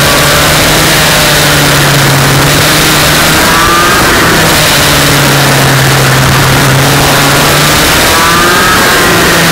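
Racing kart engine heard on board, loud, its pitch falling off and climbing again as the kart lifts and accelerates through the corners, rising about three to four seconds in and again near the end, with a dense rushing noise over it.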